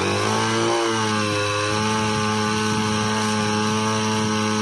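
Small engine of a portable power sprayer starting up and running at high speed. Its pitch dips and wavers for about a second after it starts, then holds steady.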